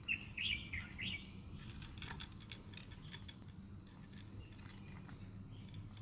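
Cat crunching dry kibble, a run of small crisp clicks throughout. A bird chirps a few times in about the first second.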